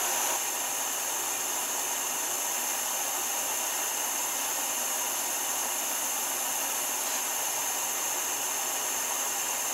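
Handheld propane-type gas torch burning with a steady, even hiss, its flame heating a steel blade to red heat for hardening.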